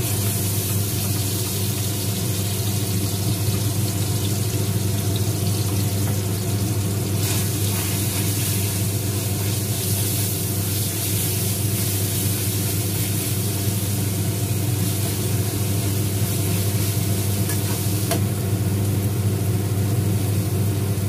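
Ground spice paste sizzling in hot oil in a stainless-steel wok as it is stir-fried with a metal spatula. A steady low hum from a machine runs under it throughout.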